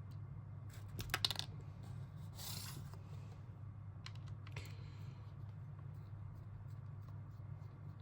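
Small hard plastic parts of a hair clipper being handled during disassembly: a quick cluster of sharp clicks about a second in, then two short scrapes and a few light ticks over a steady low hum.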